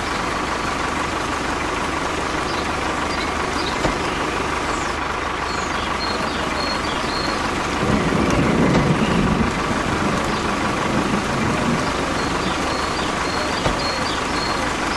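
A tractor engine running steadily, with a steady hum over it and a louder rumble about eight to ten seconds in.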